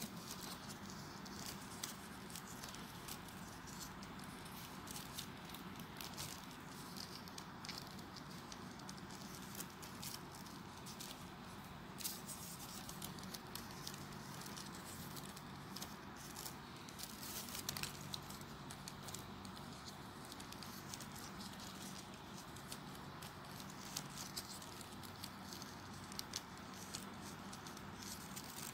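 Folded paper units of a 3D origami model rustling and clicking as fingers handle them: scattered small crackles and ticks over a steady low hum.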